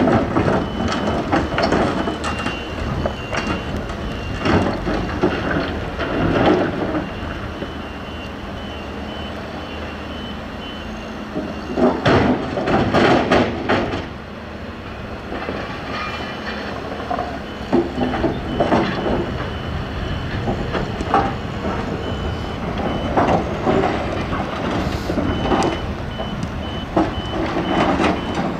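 Volvo EC210B LC tracked excavator's diesel engine working under load while its bucket digs and loads broken rock, with rocks clattering and knocking, loudest about halfway through. A reversing alarm beeps steadily in the background for much of the time.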